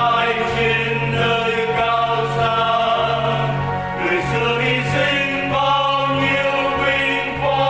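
Choir singing a Vietnamese Catholic hymn with instrumental accompaniment and a steady bass beat.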